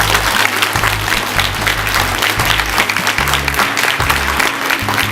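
Audience applauding with many hands clapping, over the closing bars of a song's backing music with steady low bass notes.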